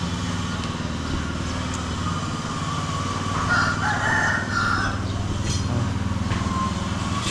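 A rooster crows once, about three and a half seconds in, a call lasting about a second and a half. Under it an engine runs steadily.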